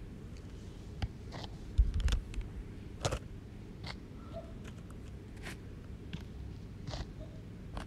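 Sound-design soundscape of scattered sharp clicks and scratchy ticks over a steady low rumble, with a cluster of low thuds about two seconds in and a couple of brief high chirps.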